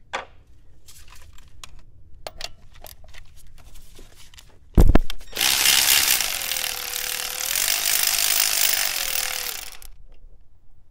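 Electric ratchet wrench with a socket extension running for about four seconds, backing out a 15 mm fuel filter housing bolt, its motor pitch dipping and rising as it works. Before it, a few light clicks of the tool being fitted and one sharp knock.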